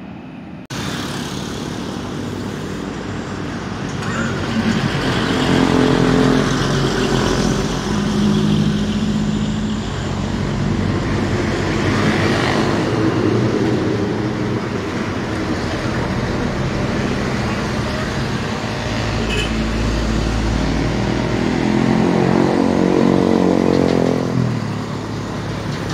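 Heavy trucks, a container truck and a tanker among them, passing close one after another: diesel engines running with tyre noise, the sound swelling as each one goes by, loudest about six seconds in and again near the end.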